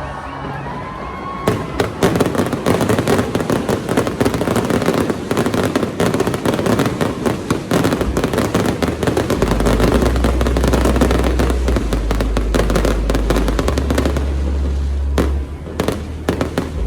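Fireworks display in a rapid barrage: a dense, continuous crackle of many small bursts, thinning to a few separate bangs near the end.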